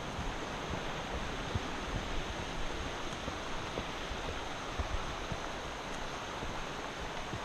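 Steady rushing of a creek running alongside the trail, with scattered soft low thumps from the walking horse.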